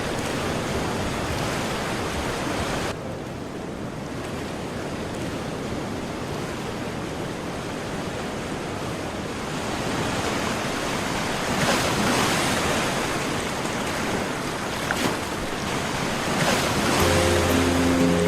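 Ocean surf breaking on a shore: a steady rush of waves that swells louder about ten seconds in. Soft music with held notes comes in near the end.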